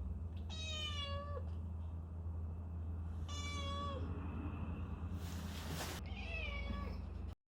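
A house cat meowing three times, each meow a little under a second long and dropping in pitch at the end. A short burst of rustling noise comes between the second and third meows, over a steady low hum.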